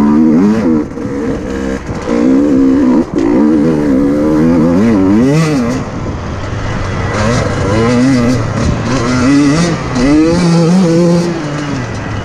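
KTM 150 EXC TPI two-stroke engine heard from on the bike, revving up and dropping back over and over as it is ridden on a dirt track. Its pitch climbs and falls with each burst of throttle, with short dips in level about a second, two seconds and three seconds in.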